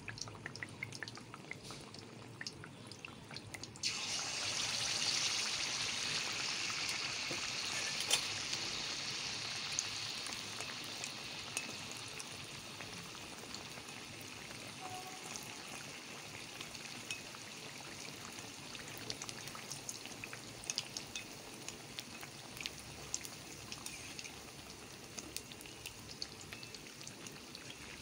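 Malpua frying in hot refined oil in a metal kadhai: a light sizzle with small crackles, then about four seconds in the sizzle jumps sharply as a fresh malpua of batter goes into the oil, and eases back slowly over the next several seconds, still crackling.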